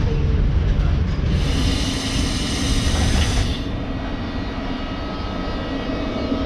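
Russian Railways EP20 electric locomotive with its passenger train: a heavy low rumble, with a band of high electrical whine from about one to three and a half seconds in. After that the rumble eases and the locomotive's steady electrical whine carries on with several held tones.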